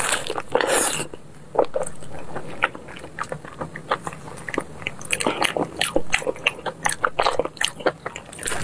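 Close-up eating sounds of braised pork knuckle: many short irregular smacks and clicks of biting and chewing soft skin and meat, with a louder, longer sucking or tearing noise in the first second.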